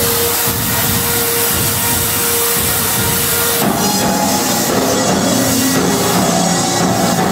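Experimental electronic noise music: a loud, harsh wash of distorted noise over a steady held tone. The tone cuts off about three and a half seconds in, as several sustained pitched tones come in.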